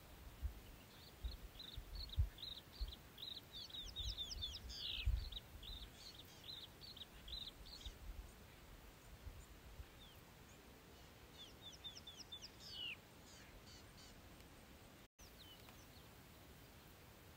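Rapid high chirping calls in two bouts: a long run of short falling chirps in the first half and a shorter run about three-quarters through, over low thumps in the first few seconds.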